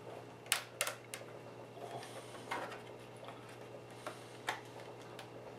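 Light clicks and taps of a small screwdriver and screws on the plastic underside of a laptop as its screws are being taken out: a quick run of three clicks in the first second or so, then a few fainter, scattered ones.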